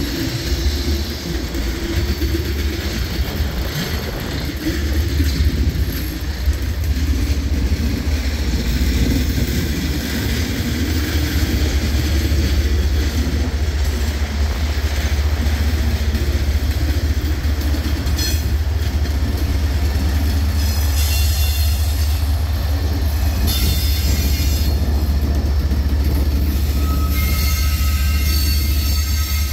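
Freight train rolling past: loaded tank cars with a steady, heavy low rumble of wheels on rail, then a mid-train diesel locomotive goes by, its engine adding to the rumble. Near the end a thin wheel squeal rises over the noise.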